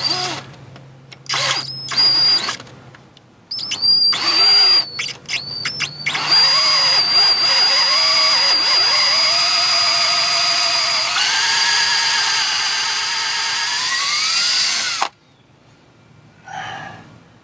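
Cordless drill drilling out a stripped bolt hole in the aluminum bell housing, overhead. It runs in a few short bursts, then holds for about nine seconds with a high whine whose pitch wavers and shifts as the bit loads, and stops abruptly near the end.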